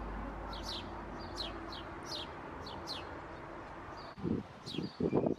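Small birds chirping, a string of short falling chirps repeated every half second or so over a steady low background hiss. Near the end come a few louder, short low bumps.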